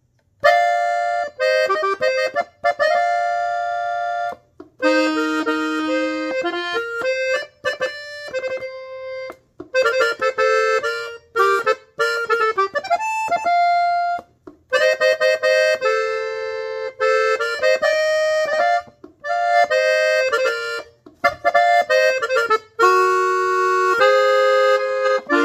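Hohner button accordion in F playing a norteño melody in B-flat, mostly two notes at a time, in short phrases with brief pauses between them. It is the song's closing passage, played the same way as its middle section.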